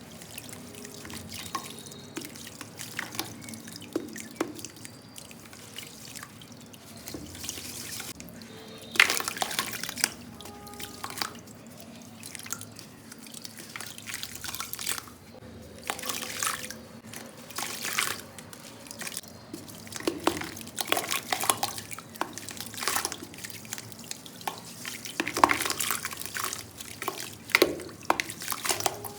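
Clumps of black sand crumbling and dropping into a bucket of water: an irregular run of small crunches, crackles and splashes, with louder bursts about nine seconds in and again near the end.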